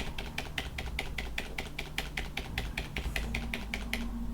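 Fast typing on a computer keyboard, a quick run of key clicks that stops about four seconds in.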